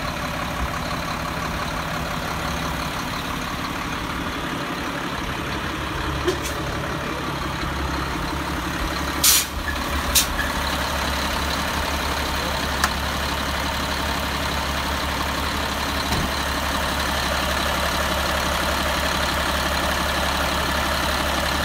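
Diesel engine of a 2005 Freightliner tow truck idling steadily, a low hum. Two short sharp sounds about a second apart near the middle stand out above it.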